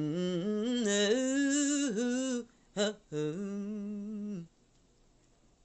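A person humming an unaccompanied melody with no words, in two held phrases that step between notes, with a short note between them; it stops about four and a half seconds in.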